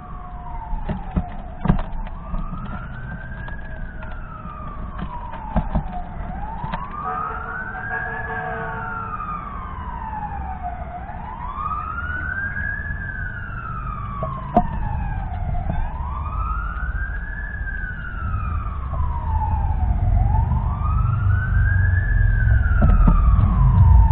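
Emergency vehicle siren in a slow wail, its pitch rising and falling about every four and a half seconds and growing louder toward the end, with a low rumble building under it. A few sharp clicks close by, the loudest about two seconds in.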